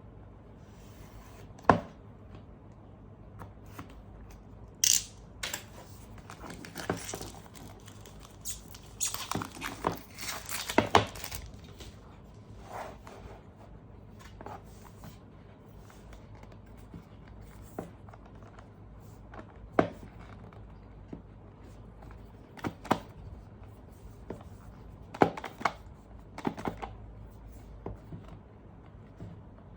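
Hands handling a tablet and its accessories: scattered clicks, taps and light knocks, with a longer stretch of rustling and scraping about nine to eleven seconds in.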